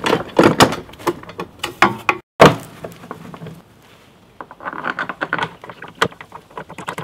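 Irregular plastic knocks, clunks and rattles from an AL-KO electric garden shredder's hopper and housing being handled and closed, with a single loudest thud about two and a half seconds in.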